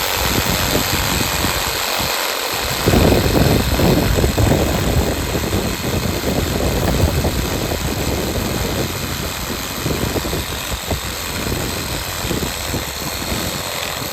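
Budget reciprocating saw running, its blade sawing through a branch. The sound grows louder and heavier about three seconds in as the blade bites into the wood.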